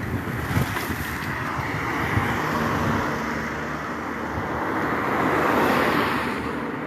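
Dual-carriageway traffic passing, tyres and engines making a steady hiss that swells as one vehicle goes by loudest a little before the end.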